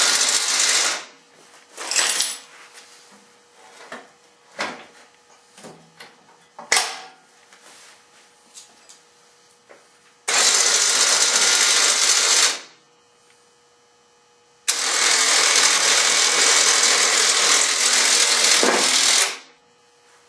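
Harbor Freight 3000 lb electric winch on an ATV running in bursts, winding its cable to raise and lower a plow blade. It runs briefly at the start, then for about two seconds, then for about four and a half seconds near the end, with clicks and knocks of the blade and hardware in between.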